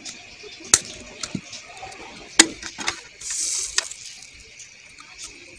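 Sharp clicks and clinks as the metal diaphragm and voice-coil assembly of a horn speaker driver unit is handled and seated. There is a brief sizzling hiss a little past the middle, as the coil's lead points are soldered.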